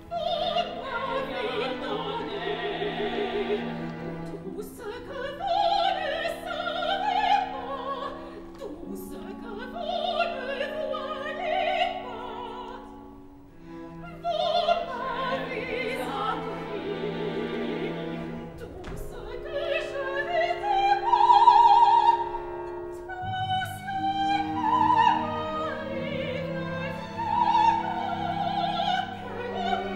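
A woman singing operatically in French with a pronounced vibrato, over a sustained orchestral accompaniment with bowed strings, in phrases separated by short breaths.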